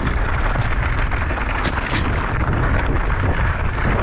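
Mountain bike rolling fast over a loose gravel trail. Heavy wind buffeting on the microphone dominates, over the crunch of the tyres, with a few sharp rattles from the bike.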